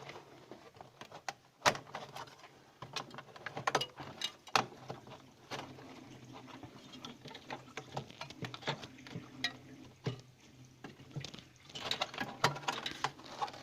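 Irregular clicks, taps and knocks of plastic parts being handled and fitted back into a no-frost fridge's freezer compartment, with one sharp click about two seconds in.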